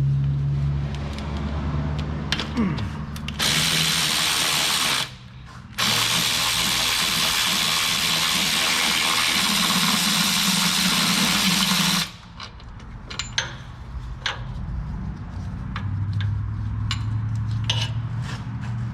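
Cordless electric ratchet on a long extension spinning out a starter mounting bolt: it runs for about a second and a half, pauses briefly, then runs steadily for about six seconds and cuts off suddenly. Light metal clicks and taps follow.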